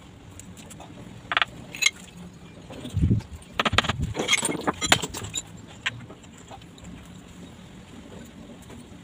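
Broken ceramic tile pieces clinking and being tapped into wet mortar with a hand tool: scattered sharp clicks, a low thump about three seconds in, then a quick cluster of clinks just after.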